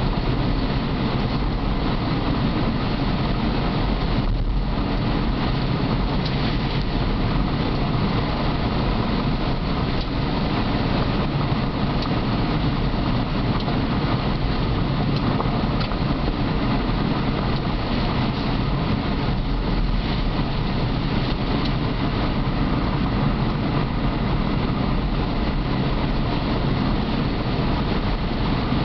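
Car driving on a gravel road, heard from inside the cabin: a steady rumble of tyres on gravel mixed with engine and road noise.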